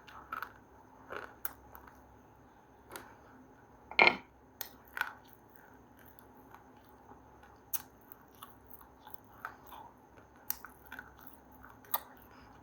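Someone biting and chewing something hard and crunchy close to the microphone: scattered sharp crunches with quiet chewing in between, and one loud bite about four seconds in.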